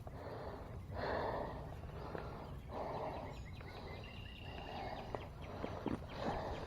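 A man breathing heavily in slow, even breaths, about four in all. Faint, short high chirps come from outdoors in the middle.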